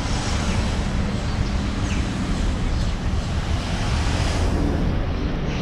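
Steady outdoor street noise with a deep rumble: traffic, and wind on the microphone.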